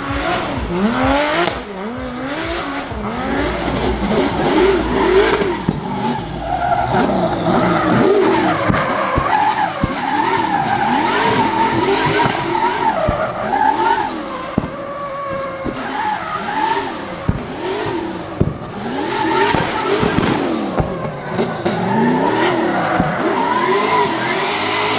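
Drift cars' engines revving hard, their pitch sweeping rapidly up and down as the throttle is worked, over a constant hiss of rear tyres spinning and squealing in smoky donuts.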